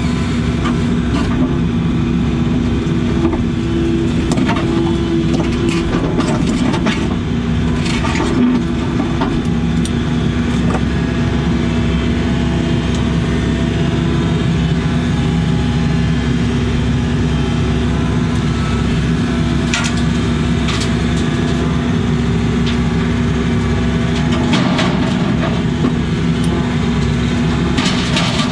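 Case CX80 excavator's diesel engine running steadily under working load, with occasional sharp clanks and knocks from the machine at work. The machine is still cold, its hydraulic oil thick and sluggish.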